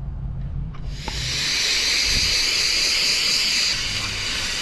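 Garden hose spraying water through an outdoor AC condenser coil, a steady hiss that starts about a second in and eases slightly near the end, rinsing out years of built-up dirt.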